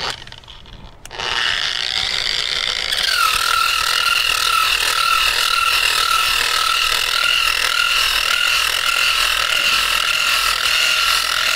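Bosch angle grinder with a 120-grit sanding disc starts up about a second in. Its whine settles to a steady pitch, with a slight wobble, as the disc sands the painted boat hull smooth before priming.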